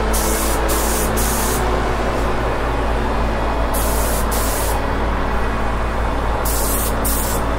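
Paint booth exhaust fan running with a steady hum, and over it a compressed-air spray gun hissing in several short bursts as black urethane paint is sprayed onto a guitar body in quick passes.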